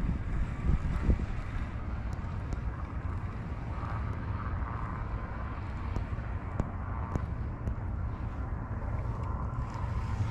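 Steady low rumble of wind buffeting the microphone, with a fainter steady hum behind it and a few light ticks.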